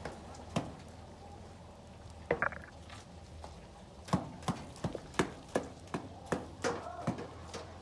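A series of sharp knocks, sparse at first and then coming steadily about two to three a second from about four seconds in, with a short ringing clink a little after two seconds.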